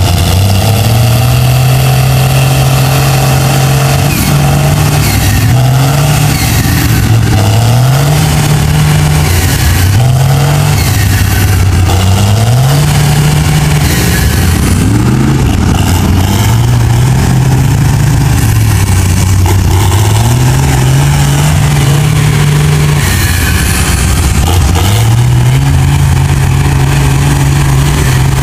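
Engine of a lifted Dodge Ram mud truck revving hard, its pitch rising and dropping back again and again every few seconds as the truck digs through deep mud, loud throughout.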